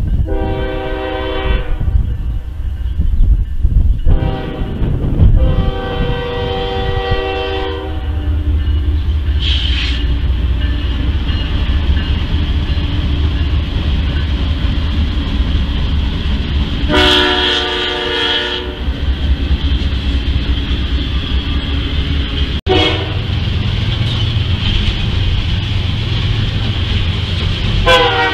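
Diesel freight locomotive air horn sounding several chord blasts for a grade crossing: a long blast, a short one and another long one, then a further long blast about seventeen seconds in and more short blasts near the end. Under the horn, a double-stack container train rumbles steadily past, its wheels clicking over the rail joints.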